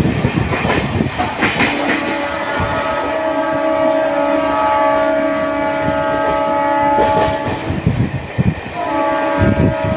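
Train horn sounding two long, steady blasts, the second starting about a second after the first ends, over the clatter of train wheels on rail joints.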